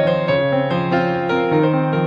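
Background piano music, gentle notes played one after another over held chords.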